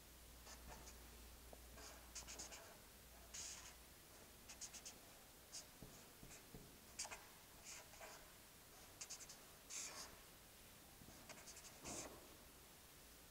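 Marker pen drawing on paper: faint squeaks and scratches of short strokes, some coming in quick runs of several strokes, as a circuit diagram's lines and zigzag resistors are drawn.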